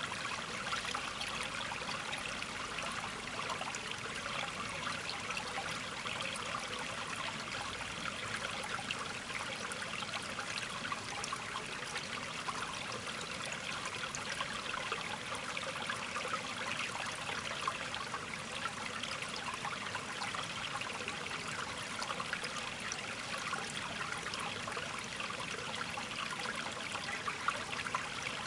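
Running water trickling steadily, an even splashing hiss without pauses.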